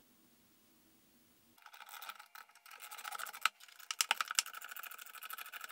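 Light clicking and scraping of small metal parts as the through bolts and nuts are fitted by hand to draw the two halves of a single-phase electric motor's housing together. It starts about a second and a half in, with one sharper click near the middle.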